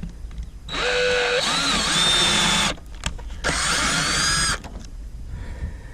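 Power drill running in two bursts, about two seconds and then about one second, its whine shifting in pitch as it works under load.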